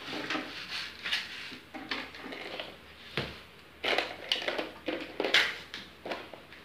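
Plastic toys clattering and knocking together as they are rummaged through in a toy bin: a string of irregular knocks and rattles.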